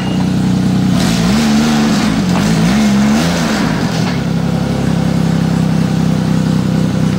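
Arctic Cat Bearcat 660 snowmobile's four-stroke three-cylinder engine running steadily. It is revved up and back down twice, starting about a second and a half in, then settles again.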